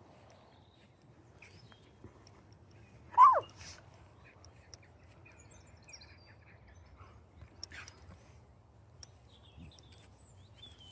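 A dog gives one short yelp falling in pitch about three seconds in, during rough play between two dogs, followed by faint scuffling and a few faint high whines.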